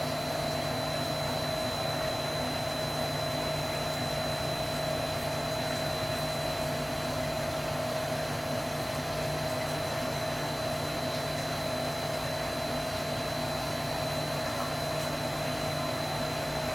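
Steady mechanical hum with a thin, high whine over it.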